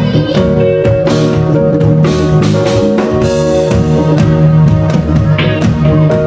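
Live band music: electric guitar and drum kit playing together, with cymbal strokes over sustained pitched notes.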